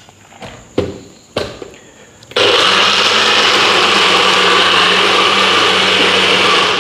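A personal bullet-style blender. First come a couple of sharp knocks as the cup is set onto the motor base. About two and a half seconds in, the motor starts abruptly and runs steadily at full speed for about four seconds, chopping peanuts and banana in Guinness punch. It cuts off at the end.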